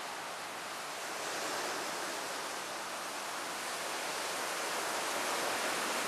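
Steady, even outdoor hiss with no distinct sounds standing out.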